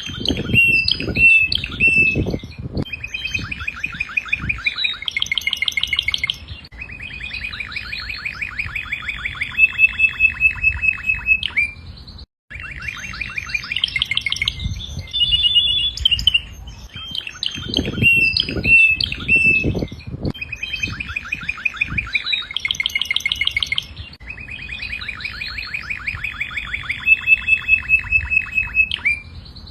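Domestic canary singing a long, loud song of fast trills and rapid repeated notes, broken by a short pause about twelve seconds in.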